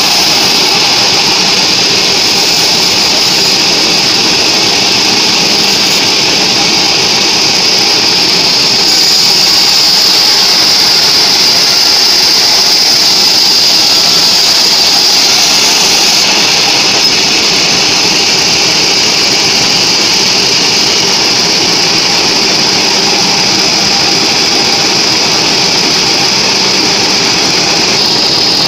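Band sawmill running and sawing through a mahogany beam: a loud, steady machine noise with a strong high hiss, shifting slightly in tone a few times as the cut goes on.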